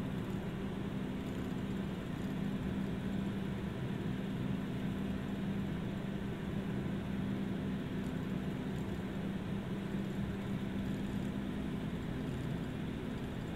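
Bombardier Q400's Pratt & Whitney PW150A turboprop running at ground idle with its propeller turning slowly, heard from inside the cabin as a steady low drone with a constant hum.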